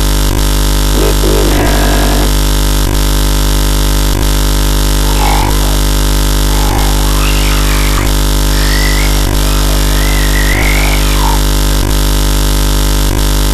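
Loud, steady electrical hum and buzz with many overtones, with a faint tick repeating about every second and a quarter. Faint wavering sounds come and go above it.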